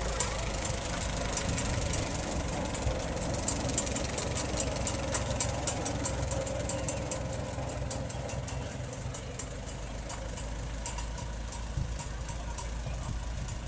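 Antique engine idling steadily, with a rapid clicking over a low rumble.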